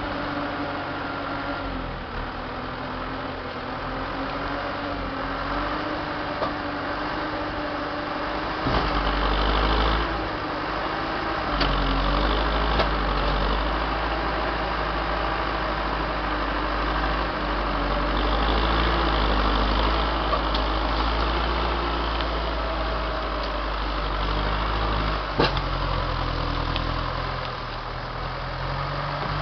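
Turbo diesel engine of an LKT 81 T forestry skidder running steadily, then working harder with a deeper rumble from about nine seconds in as the machine drags a hitch of oak logs. A few sharp knocks sound over the engine.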